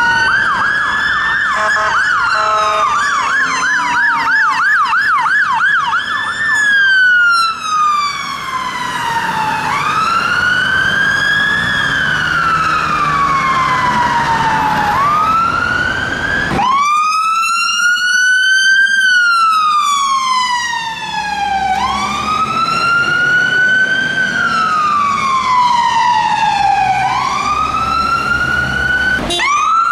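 Fire engine electronic sirens on wail: a tone that rises quickly and sinks slowly, about every three to four seconds. A few seconds in there is a short burst of rapid yelp, and about halfway through the sound cuts abruptly to another appliance's wail.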